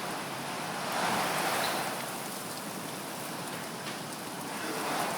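Heavy rain pouring down in sheets during a thunderstorm, a steady hiss that swells a little about a second in and again near the end.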